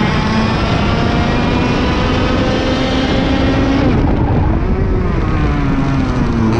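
IAME KA100 100cc two-stroke kart engine running at racing speed. Its pitch climbs slowly, drops sharply about four seconds in, picks up briefly, then falls away again as the kart turns into a corner.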